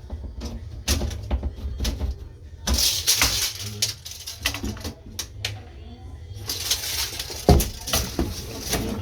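Hand work on drywall patch pieces being fitted back into a wall: a run of clicks and knocks with bouts of scraping and rustling, and one louder thump near the end.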